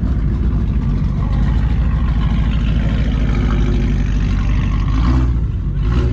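Car engines idling, a steady low rumble.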